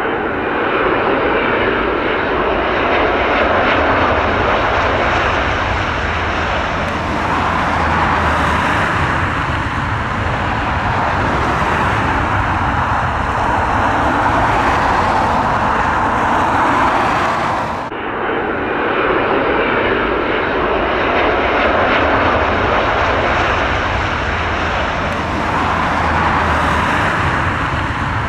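Jet airliner engines running loud and steady as a large passenger jet lands. The sound dips sharply about eighteen seconds in, then builds again.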